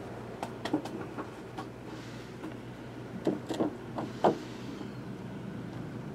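Light clicks and rustles of trading cards being handled in the hands, a few louder ones about three to four seconds in, over a steady low hum.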